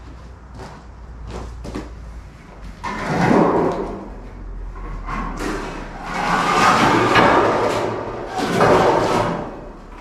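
A thin galvanized steel sheet being picked up and flexed, wobbling and rattling in three loud bursts, the longest in the middle. Light footsteps crunch on gravel before it.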